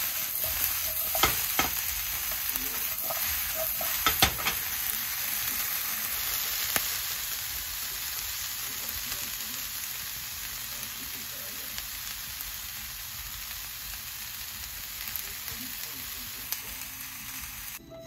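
Green vegetables (halved Brussels sprouts, broccolini and green beans) sizzling in a nonstick frying pan as they are stir-fried, with a few sharp clicks of the utensil against the pan in the first four seconds or so. After that the sizzle goes on steadily.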